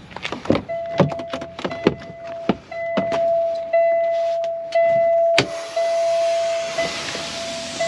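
Semi-truck cab: knocks and clunks as the driver climbs in, while a steady in-cab warning buzzer sounds on and off. About five and a half seconds in there is a sharp click, then a hiss of air from the air-brake controls.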